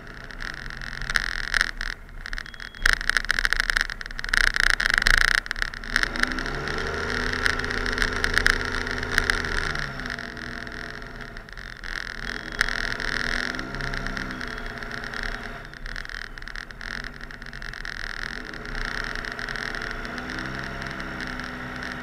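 Cummins diesel engine of a Ram 2500 plow truck, revving up and holding for a few seconds about six seconds in, then easing off, with shorter rev-ups later. A steady hiss runs underneath, and there are scattered clicks and knocks in the first few seconds.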